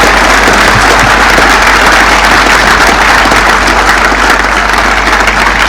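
Large crowd applauding steadily, a dense, unbroken wash of clapping.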